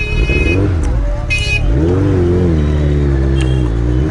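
Suzuki Hayabusa inline-four with a loud exhaust, blipped at low speed: the revs rise and fall in short bursts, hold steadier in the middle, and climb again near the end.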